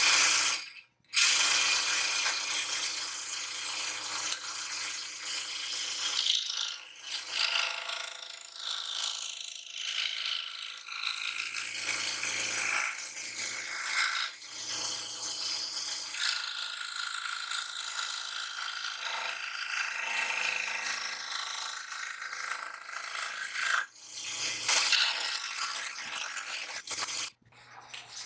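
Homemade metal-framed scroll saw running, its reciprocating blade making a steady rattling buzz as it cuts a piece of printed cardboard.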